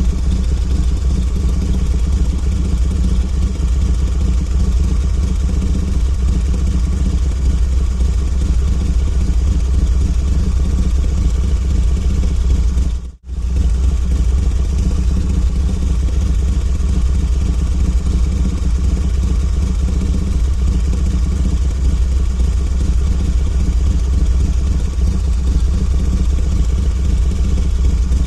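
Harley-Davidson V-twin motorcycle engine idling steadily, with a deep low rumble. The sound drops out for a fraction of a second about halfway through, then resumes unchanged.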